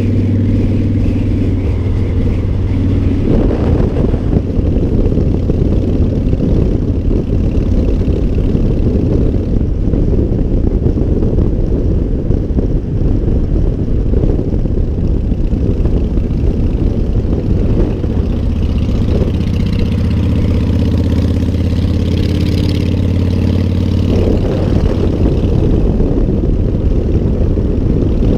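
Motorcycle engine running steadily at road speed, with a heavy rush of wind and road noise. The engine note shifts a few seconds in and again near the end.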